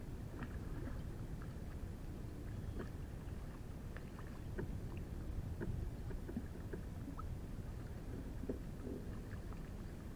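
Steady low rumble of wind and water around a small plastic fishing kayak, with scattered small splashes and ticks as a hooked trout thrashes at the surface beside the hull.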